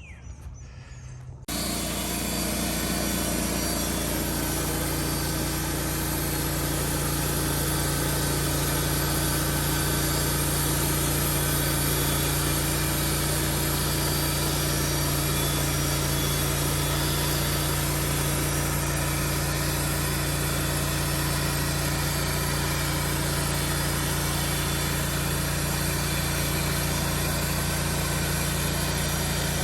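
Portable sawmill's engine running steadily at an even speed while milling pine cants into boards. It comes in abruptly about a second and a half in and holds steady throughout.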